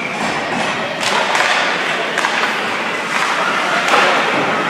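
Ice hockey play: skate blades scraping and carving on the ice, with several sharp knocks of sticks and puck during play after a faceoff.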